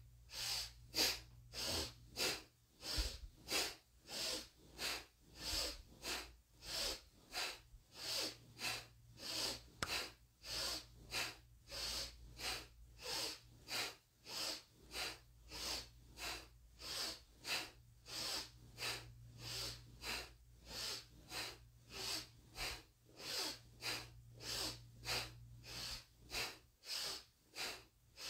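A person breathing forcefully through the nose in a steady rhythm, a strong inhale and a strong exhale in turn, about two sharp breath strokes a second, in a Kundalini yoga breathing exercise.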